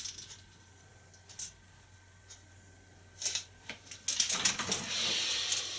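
Handling noise from a spinning rod being worked hand over hand: a few sharp isolated clicks, then about a second and a half of louder rustling and rubbing with small clicks near the end.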